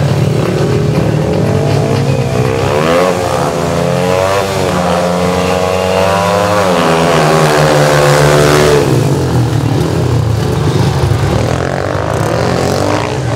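Speedway motorcycles' single-cylinder engines running, their revs rising and falling in repeated sweeps from about two to nine seconds in over a steady engine note.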